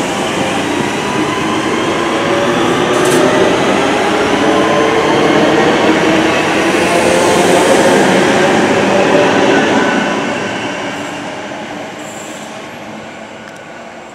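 Class 323 electric multiple unit pulling away from the station: its traction motors whine, rising in pitch as it gathers speed, over the running noise of wheels on rail. The sound is loudest about eight seconds in, then fades as the train draws away.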